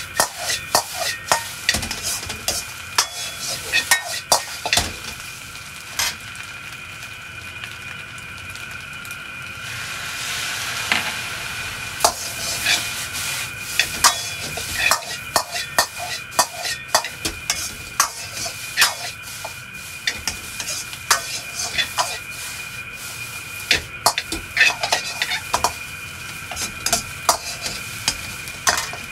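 Metal ladle clanking and scraping against a wok as green beans and egg are stir-fried over high heat, with sizzling throughout. The sharp ladle strikes come thick and irregular, thin out for a few seconds partway through, and the sizzling swells about ten seconds in before the tossing picks up again.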